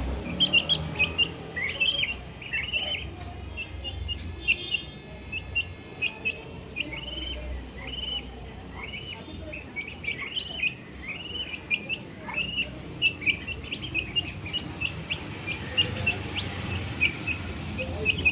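Baby chicks peeping: a continuous stream of short, high chirps, several a second and overlapping, many with a rise-and-fall shape.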